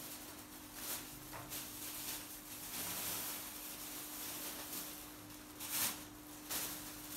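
Baby macaque picking at and chewing lotus seed pods: soft rustling and crunching of the green pods, with a louder rustle about six seconds in, over a steady faint hum.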